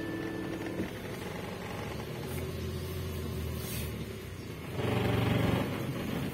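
Car engine running as the car pulls away, heard from inside the cabin, growing louder for about a second near five seconds in as it accelerates.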